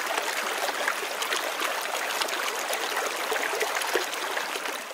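Shallow muddy water running steadily through a small dug channel, a continuous babble of little trickles and splashes around the pillars of a toy bridge.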